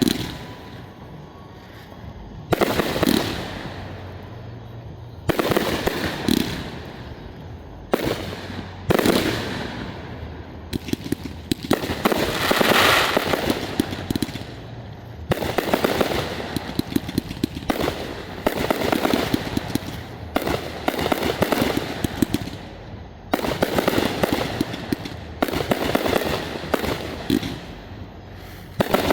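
Aerial fireworks shells bursting one after another, about a dozen sharp booms a few seconds apart, several trailed by a dense crackling.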